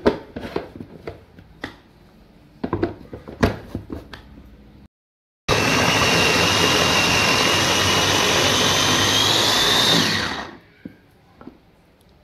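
Plastic knocks and clicks as the electric food chopper's lid and motor unit are fitted on its bowl. Then the chopper runs for about five seconds, mincing raw chicken, its whine rising slightly before it winds down.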